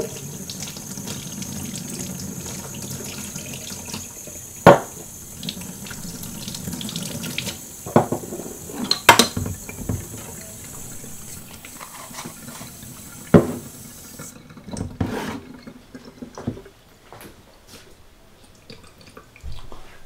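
Kitchen tap running into a stainless steel sink, the water stopping abruptly about two-thirds of the way through. Several sharp knocks cut through it, the loudest about a quarter of the way in.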